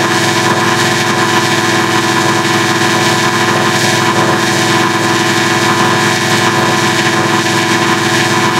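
Logo audio mangled by a digital effects chain with a harmonic adder: a loud, steady, buzzing drone of many stacked tones that runs without a break.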